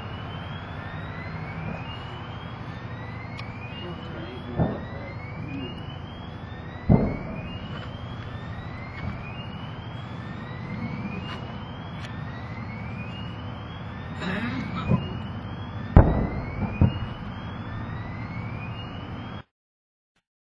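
A burning ammunition cache cooking off: sharp distant booms about four seconds in, the loudest one about seven seconds in, and a cluster of them around fifteen to seventeen seconds, over a steady low rumble. Throughout, a whooping alarm siren rises in pitch again and again, a little more than once a second. The sound cuts off just before the end.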